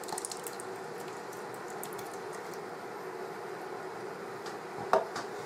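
Chicken stock pouring into a hot pan of minced lamb and vegetables and being stirred in with a wooden spoon, a soft wet simmering and squelching. One sharp knock about five seconds in, the spoon or jug against the pan.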